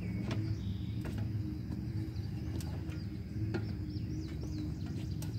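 Compact tractor engine idling with a steady low hum, with scattered light clicks and knocks and a few bird chirps near the end.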